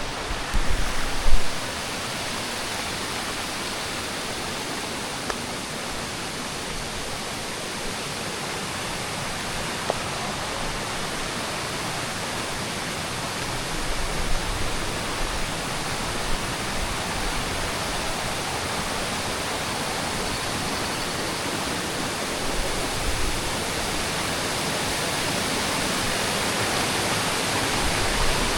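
Waterfall: a steady, even rush of falling water, growing slightly louder toward the end, with a few brief low thumps in the first two seconds and again partway through.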